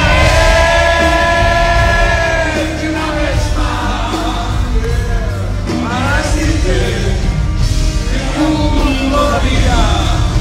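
A man and a woman singing a pop duet live with a band, beginning with a long held note.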